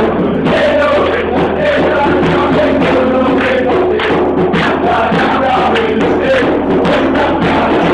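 A crowd of football supporters chanting in unison, many male voices singing together over a steady percussive beat.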